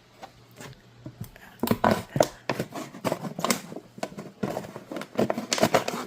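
A dull knife sawing and cutting through a plastic container to make a makeshift funnel: irregular crackling and scraping of the plastic, starting about a second and a half in.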